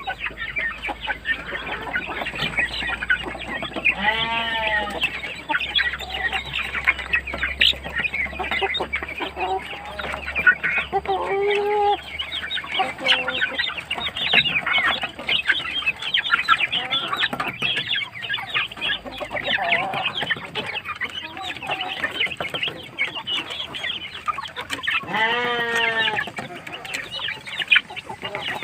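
Chickens clucking and chattering over one another, with a longer drawn-out call about four seconds in and another near the end.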